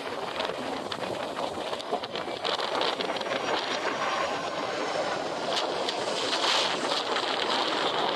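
Jet aircraft engines making a steady rushing noise.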